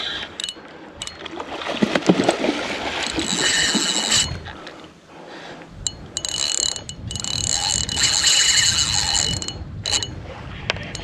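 Fishing reel being cranked in two spells, its gears whirring steadily each time, as a hooked barramundi is wound in. Handling knocks and rustles come about two seconds in.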